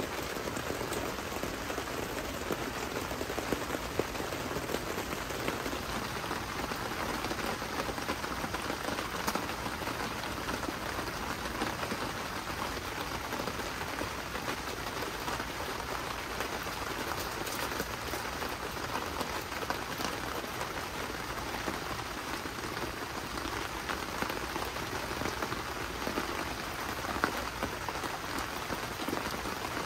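Steady rain falling on a tent, with a few louder single drops.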